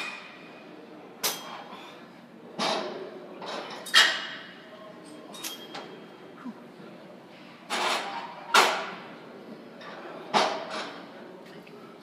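A series of short, sharp knocks at irregular intervals of a second or two, each dying away quickly in a large room.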